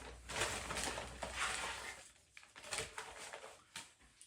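Packaging rustling as items are handled and unwrapped, followed by a few light clicks and knocks.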